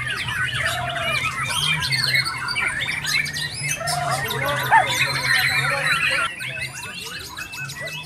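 Many caged songbirds singing and calling at once, a dense, overlapping chorus of whistles, chirps and trills, with a white-rumped shama among them; it thins a little after about six seconds. A steady low hum runs underneath.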